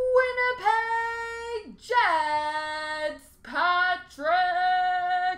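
A voice singing a run of about four long, high, drawn-out notes with short breaks between them. The later notes sit a little higher than the first.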